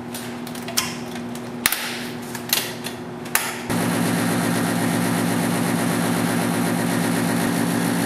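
A few sharp clicks and knocks from handling equipment, then about three and a half seconds in the Hollymatic HVT-30 vacuum tumbler's motor switches on and runs with a steady hum.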